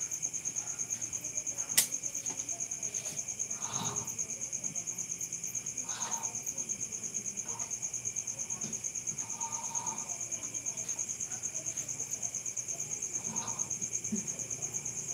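Crickets chirping in a steady, fast pulsing trill. A sharp click about two seconds in and a few soft knocks come from clothes on hangers being handled.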